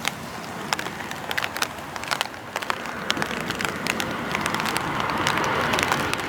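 Rushing noise that grows slowly louder, with scattered sharp crackles: a Tohoku Shinkansen train approaching at speed.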